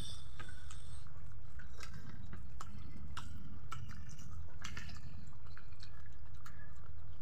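Close-up eating sounds of people eating rice and curry by hand: wet mouth clicks and smacks of chewing, coming irregularly, over a steady low hum.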